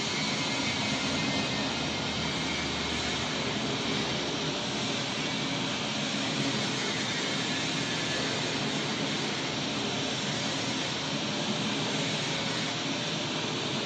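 Turntable pallet wrapping machine running: a steady whirring noise, even throughout, as the turntable rotates the stretch-film-wrapped load.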